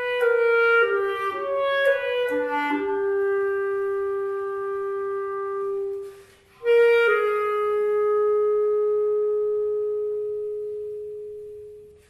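Solo clarinet playing a slow melody. A short run of quick notes leads into a long held note, then a brief breath. Another long held note follows and fades away toward the end.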